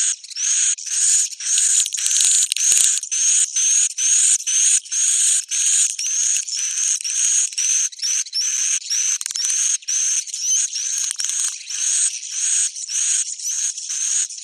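Lure recording of the bird called panianan: short, raspy calls repeated about twice a second, each with a brief upward-sliding note.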